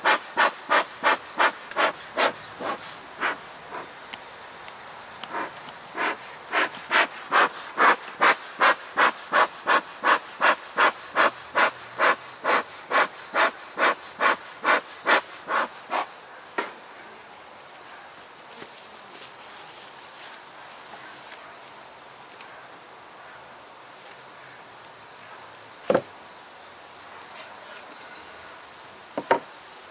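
Bee smoker's bellows puffing, short whooshes at about two a second that stop about sixteen seconds in. Crickets trill steadily behind it, and two sharp knocks come near the end.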